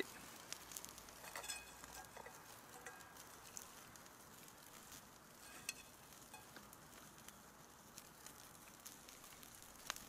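Near silence, with faint scattered small clicks and crackles over a quiet hiss.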